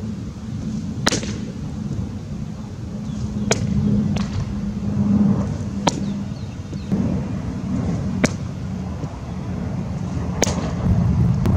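Baseballs popping into a leather catcher's mitt, five sharp smacks about every two and a half seconds as pitches are caught in a receiving drill, over a low steady rumble.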